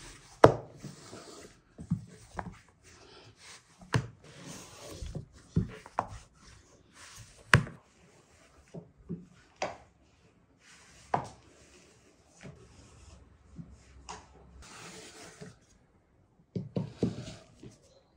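Long thin wooden rolling pin working dough into a thin sheet on a wooden board: rubbing, sliding strokes with irregular sharp wooden knocks every second or two as the pin strikes the board.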